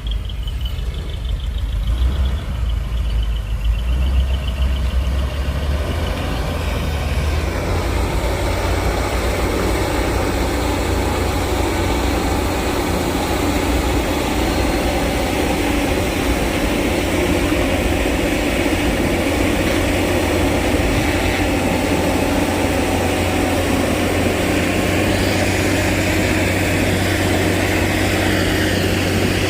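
Heavy diesel road-construction machine running: a low engine rumble that fills out into a louder, steady working sound about seven seconds in.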